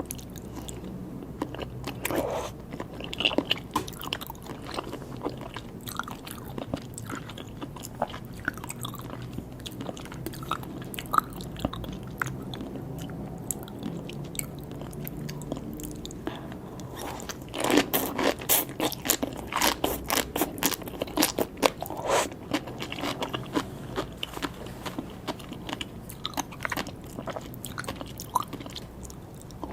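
Close-miked chewing and biting of sea grapes and salmon sashimi: soft wet chewing with scattered crisp pops. A dense run of loud pops and crunches comes about two-thirds of the way through.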